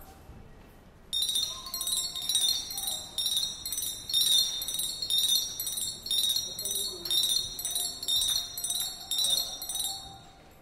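High, bright metallic chiming, pulsing evenly about twice a second. It starts about a second in and fades out near the end.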